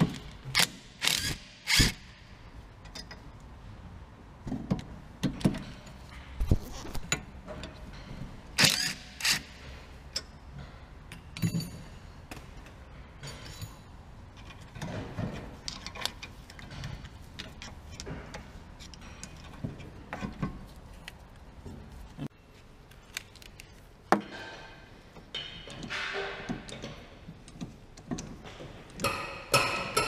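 Scattered metal clicks, knocks and clinks of tools against a car's rear brake caliper and its parts, a few of them louder, close together near the start.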